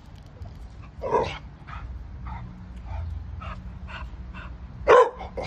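American bully puppy vocalising in frustration at a blanket out of reach: a sharp cry about a second in, a louder one near the end, and short even sounds about twice a second in between.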